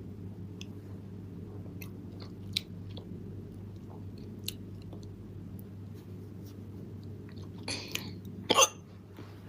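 A woman's hiccup: one short, sharp vocal burst with a sudden onset, the loudest sound, about a second before the end, just after a softer breathy catch. A steady low hum and a few faint clicks run underneath.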